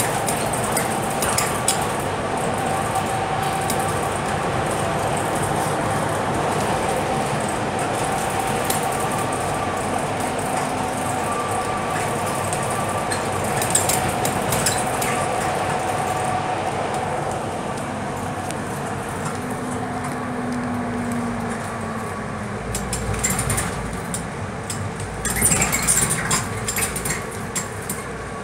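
Inside a Scania K320UB bus with a Volgren Optimus body while it drives: steady engine and road noise with a steady whine, and rattling from the body fittings, heaviest near the end.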